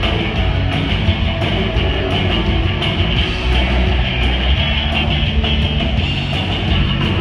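Live rock band playing: electric guitars and a drum kit, loud and unbroken.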